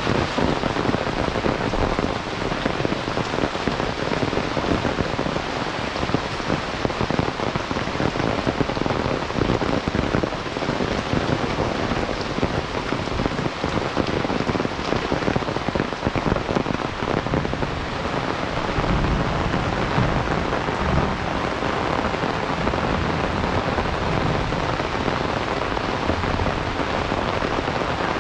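Heavy monsoon rain pouring steadily, a dense patter of drops hitting the ground and nearby surfaces.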